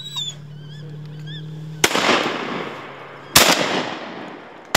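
Three shotgun shots about a second and a half apart, the last right at the end, each loud crack followed by a long echo rolling away across the swamp.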